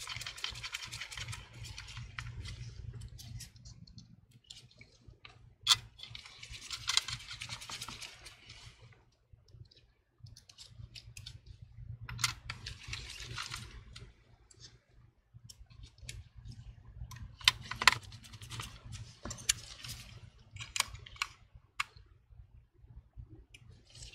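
Small clicks, taps and scraping from a precision screwdriver working screws inside an opened MacBook Pro A1502, mixed with rustle from gloved hands. It comes in several short bouts with a few sharper clicks.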